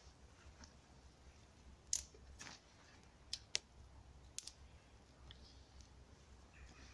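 Small campfire of dry grass and twigs crackling, with a handful of sharp pops between about two and four and a half seconds in.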